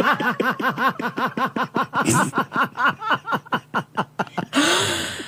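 A woman laughing helplessly: a long run of quick, rhythmic "ha-ha" pulses, about five or six a second, broken near the end by a noisy gasp for breath.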